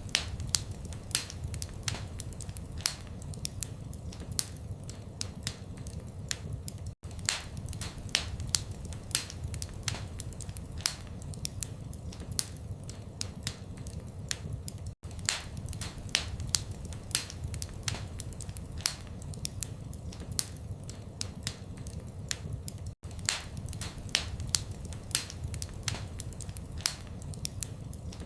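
Fireplace fire crackling: a steady run of sharp pops and snaps, several a second, over a low rumble of flame. The sound cuts out for an instant about every eight seconds.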